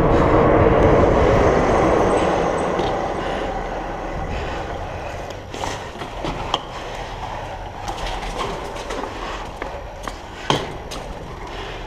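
Riding noise of a Surly Moonlander fat bike on 4.8-inch Knard tyres on pavement: the rush of wind and tyre roar dies away over the first few seconds as the bike slows. A quieter stretch with scattered sharp clicks and knocks follows.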